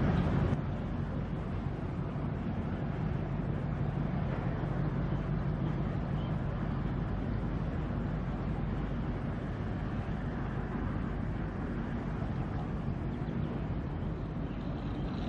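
Steady low rumble of a ship's engine with an even hiss over it.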